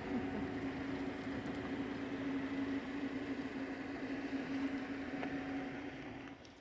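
A steady motor hum at one constant pitch over a noisy rush, fading out near the end.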